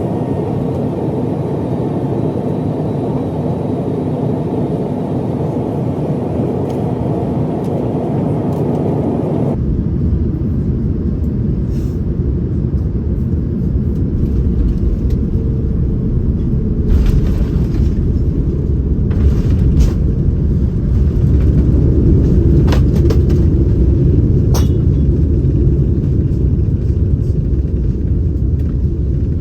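Steady airliner cabin noise aboard an Airbus A330neo. About a third of the way in it changes abruptly to a deeper rumble with a few short clicks and knocks.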